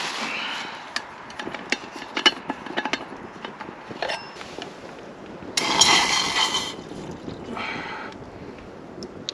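Small clicks and knocks of camping gear being handled, then water poured from a plastic bottle into a small metal kettle, a splashing rush that rings in the pot and comes in two bursts in the second half.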